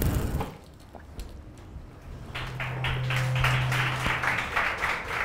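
Audience clapping, starting about two seconds in after the tail of an intro music jingle cuts off at the start, with a low steady hum for about two seconds as the clapping begins.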